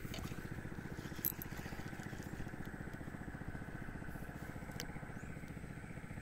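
A small engine running steadily with an even, fast pulse, and a brief click about a second in.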